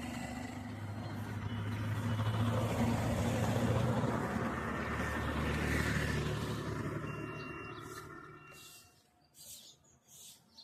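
A vehicle passing: a low engine rumble grows louder over the first few seconds, then fades away by about nine seconds in. Faint bird chirps near the end.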